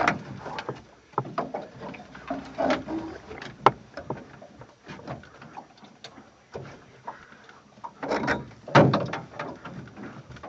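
Handling noise: irregular rustling, scraping and knocking of a phone rubbing against fabric, with the loudest knocks and rustles about eight to nine seconds in.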